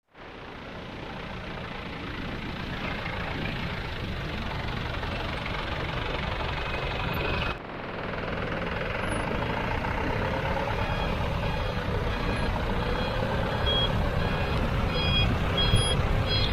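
Heavy diesel earthmoving machinery running steadily, with a reversing alarm beeping at an even pace near the end.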